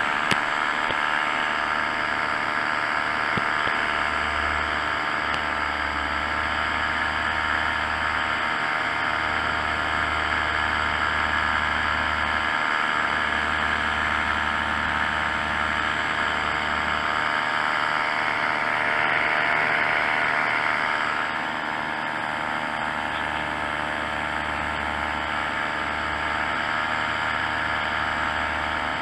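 Tandem paramotor's engine and propeller running steadily in flight. The sound swells slightly, then drops a little about two-thirds of the way through.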